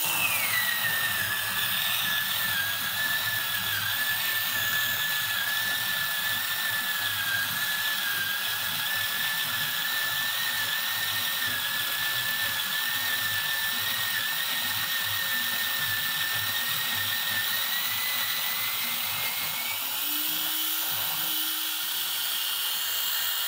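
Goat Story Arco 2-in-1 grinder's electric motor grinding a 20 g dose of coffee beans fine for espresso: a steady, fairly loud whine that drops in pitch as the beans go in and load the burrs. About twenty seconds in, the pitch climbs back up as the beans run out and the grinder spins empty, then it switches off at the end.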